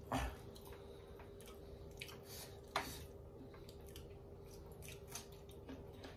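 Mukbang eating sounds of dal bhat eaten by hand: quiet chewing and mouth noises and fingers mixing rice on brass plates. There are two short sharp smacks or clicks, one just after the start and one near three seconds in, over a faint steady hum.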